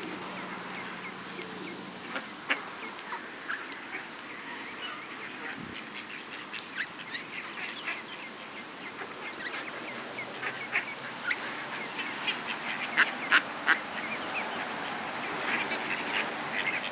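A flock of mallard ducks calling in short, scattered quacks, with a cluster of louder quacks about thirteen seconds in.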